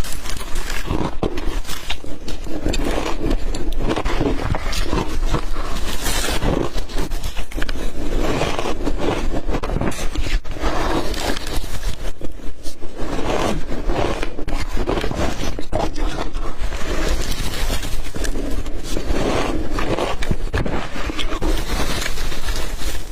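Ice being bitten and chewed: a dense, unbroken run of crunching and cracking.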